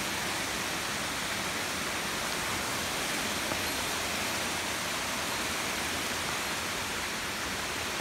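Waterfall cascading down a rock face: a steady, even rushing hiss.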